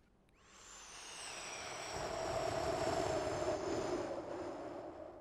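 Vocal imitation of a jet airplane passing: a hissing rush with a thin high whine that swells for about two seconds, then fades away.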